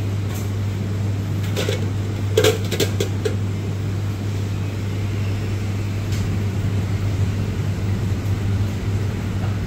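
A steady low machine hum, with a few light clicks about two to three seconds in.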